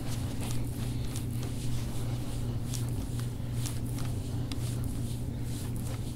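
Deep-tissue massage strokes on skin: light, irregular swishing and scraping over a steady low hum.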